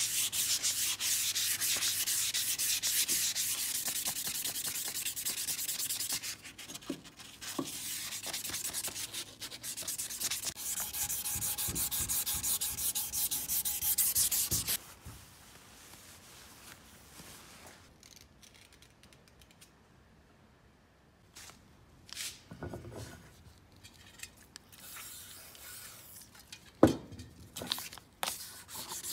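Sanding: rapid abrasive rubbing for about fifteen seconds, thinning out for a few seconds partway through, then stopping abruptly. After that only faint scattered clicks and light knocks, one sharper knock near the end.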